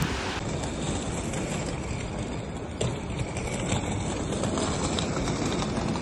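Wind on the microphone outdoors: a steady rushing noise, with a couple of faint knocks near the middle.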